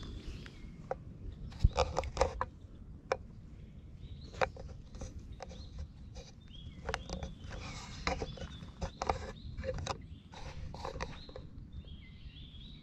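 Close rustling and irregular sharp clicks from clothing, gravel and the cat shifting against the microphone as it is petted on a lap, with small birds chirping in the background.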